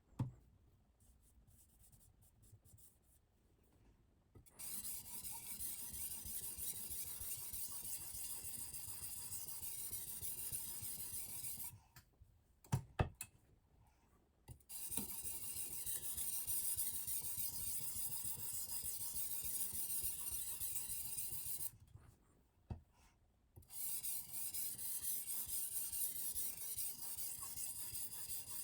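Silicon carbide oil stone grinding along the edge of a Damascus steel knife in three long stretches of steady rasping hiss, with two short pauses in between that hold a few sharp clicks.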